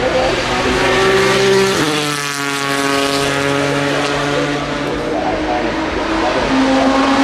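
Racing car engine running at held revs. Its note drops in a step about two seconds in and shifts again near the end.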